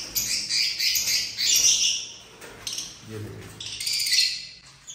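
A small caged bird, of the kind that bites, calling harshly over and over as it is grabbed by a gloved hand. The calls ease off briefly partway through, then come loud again near the end.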